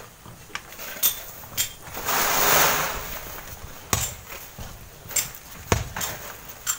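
Loose sand sliding down a cliff face as it is scraped with long bamboo poles: a hiss that swells for about a second near the middle, with scattered sharp knocks.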